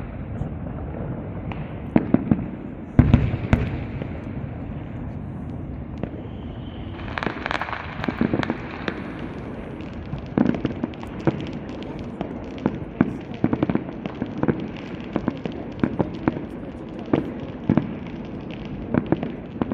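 Aerial fireworks display going off: a steady run of sharp bangs, with a heavy low boom about three seconds in and a stretch of hissing crackle around seven to nine seconds.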